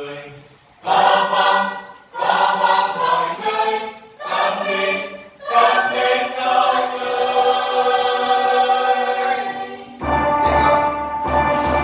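Mixed church choir rehearsing a hymn unaccompanied. It sings several short phrases with brief breaks, then one long held phrase. About ten seconds in, the sound turns fuller, with a deep bass underneath.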